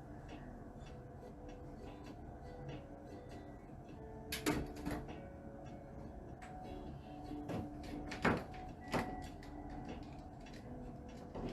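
Kitchen clatter: several sharp knocks and clicks, a pair about four to five seconds in and a cluster around eight to nine seconds, like a cupboard door or lid being handled while rice is fetched. Soft background music plays underneath.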